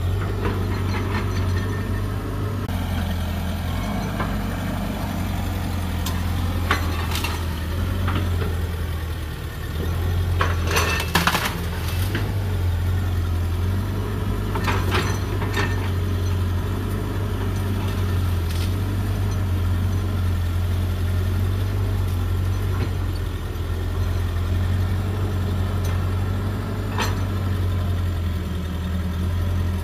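Excavator's diesel engine running with a steady low drone, with scattered sharp clanks and knocks, a cluster of them about ten to twelve seconds in.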